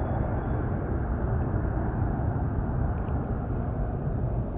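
Airbus A321-231's twin IAE V2500 turbofan engines at climb power, a steady low rumble as the airliner climbs away after takeoff.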